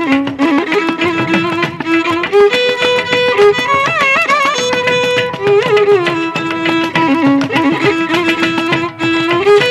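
Background music in Carnatic style: a violin holding long notes and sliding between them in ornamented turns, over steady percussion strokes.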